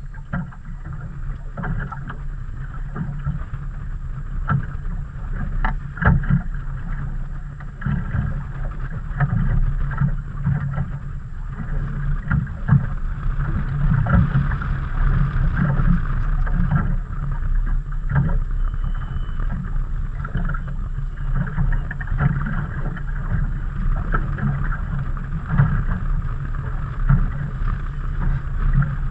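Choppy water slapping and knocking against the hull of a small fishing boat, with wind rushing over the microphone.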